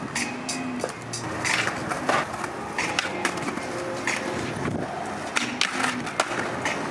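Skateboard wheels rolling over concrete, broken by several sharp clacks of the board popping and landing.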